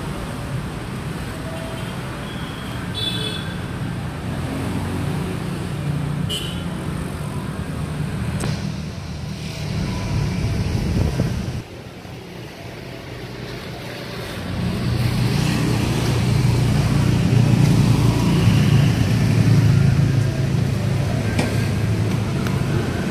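Street traffic noise: a steady low rumble of vehicle engines and road noise. It drops suddenly about halfway through and grows louder over the last third.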